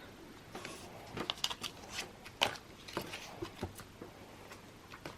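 Light handling noise from a card binder and cards: scattered soft clicks and taps with a brief rustle about half a second in.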